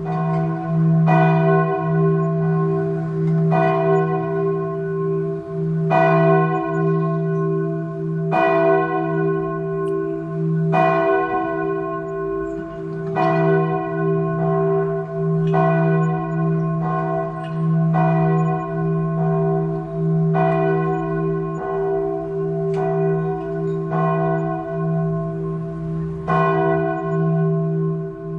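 A single church bell tolling steadily, struck about every two and a half seconds. Each stroke rings on into the next over a low hum that never dies away.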